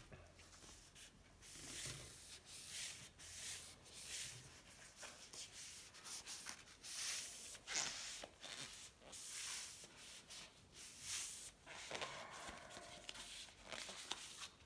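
Fine 3000-grit sandpaper rubbed by hand over painted steel, in back-and-forth strokes about once a second: hand-sanding old paint to bring it back.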